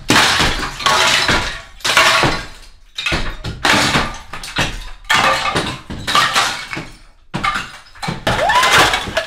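A plaster ceiling with red clay blocks being smashed down: a string of loud crashes, about one a second, as chunks of plaster and clay break away and fall.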